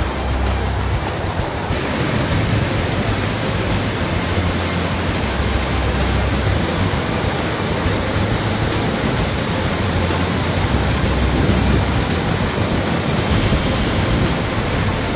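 Heavy rain pouring down in a steady, dense hiss that becomes brighter about two seconds in.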